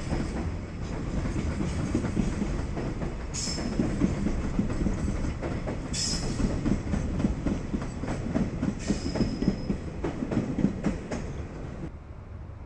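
Freight train rolling past, its wheels clattering rhythmically over rail joints with a steady rumble. Brief high wheel squeals come three times, and the sound drops off sharply near the end.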